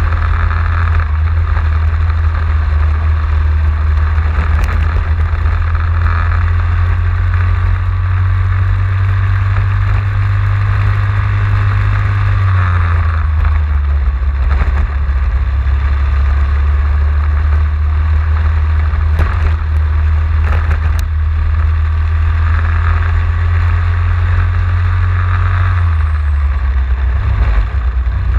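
Racing kart engine at race pace, heard from on board: its note climbs slowly along the straights and drops suddenly twice as the driver lifts for a corner, about halfway through and near the end.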